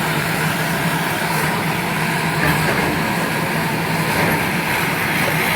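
Heavy engine running steadily with a constant low hum under a wash of outdoor noise.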